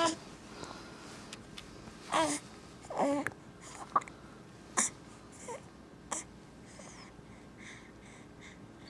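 A baby with the hiccups fussing: two short whimpering cries about two and three seconds in, then three sharp hiccups about a second apart, the middle one loudest.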